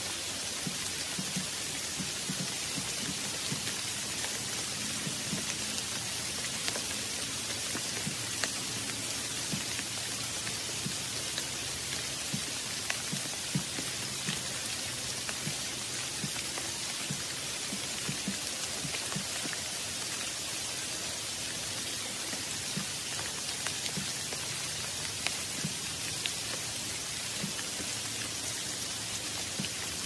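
Steady rain falling, a continuous hiss with many small, scattered drop taps.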